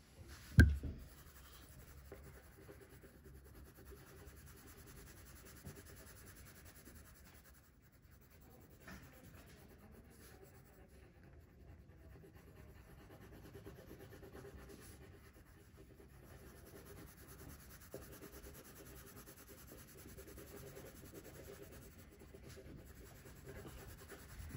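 Red colored pencil scratching faintly and steadily on paper, colouring in a drawing with back-and-forth strokes. A single sharp thump about half a second in.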